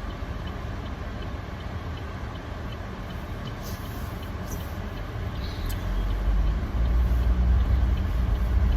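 Car engine and road noise, a steady low rumble that grows louder about six seconds in, with a faint, quick, regular ticking.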